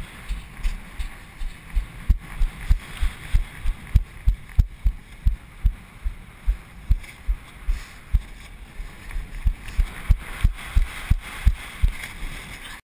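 Footsteps of a person walking on a beach, heard as low thuds about three a second through a body-worn action camera, over a steady hiss of wind on the microphone. The sound cuts off abruptly near the end.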